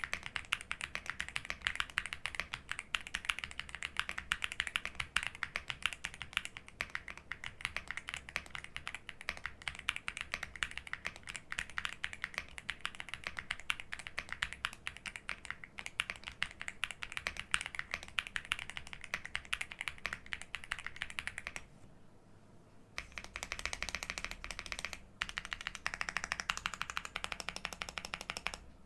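Stock Monka A75 Max aluminium mechanical keyboard with Snow linear switches and double-shot PBT keycaps, typed on quickly and continuously. There is a brief pause in the typing about three-quarters of the way through.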